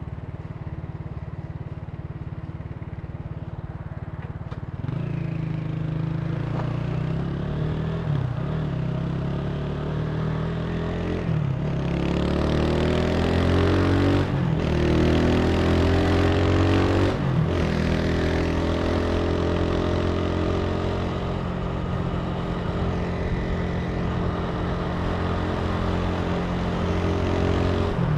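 Italika TC300 motorcycle engine running at low, steady revs, then accelerating from about five seconds in. It climbs in pitch and shifts up through several gears, with a break and drop in revs at each shift, then settles into a steady cruise.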